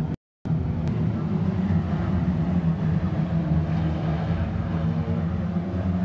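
Engines of several Lightning Rod saloon race cars running together around an oval track, a steady low drone. The sound cuts out completely for a moment just after the start.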